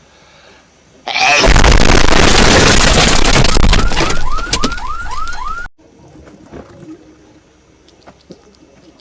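Sudden, extremely loud, distorted blast of noise: an exaggerated meme-style hedgehog sneeze effect. It lasts about four and a half seconds, with a run of quick rising chirps near the end, and cuts off abruptly.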